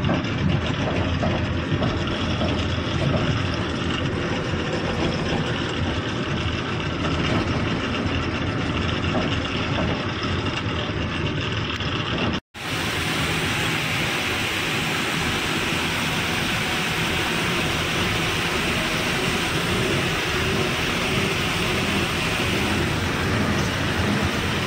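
Heavy truck's diesel engine and road noise heard from inside the cab while driving slowly. About halfway through the sound drops out for a moment at an edit and comes back with more hiss.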